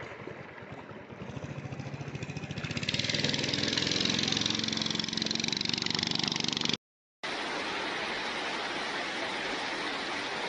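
An engine running with a fast, even pulse, growing louder over the first few seconds. A sudden cut to silence follows, then a steady, even rushing noise.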